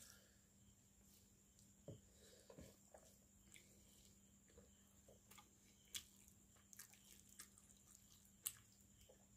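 Faint wet squelches and clicks of eating with the hand: fingers mixing rice into fish curry, and chewing with the mouth open. Short sharp clicks stand out about six seconds in and near the end.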